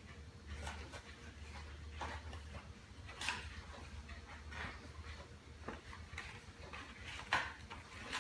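Scattered clicks and rustles of cardboard and plastic packaging being handled while a box is unpacked, with a sharper click about three seconds in and another near the end, over a steady low hum.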